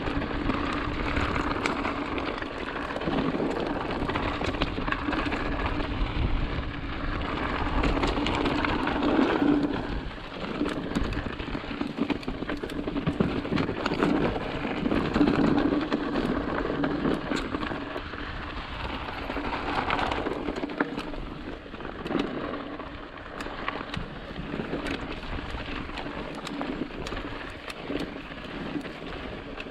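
Mountain bike being ridden along a dirt trail: tyres rolling over dirt and gravel with a steady hum, and frequent small clicks and rattles from the bike, with wind on the microphone.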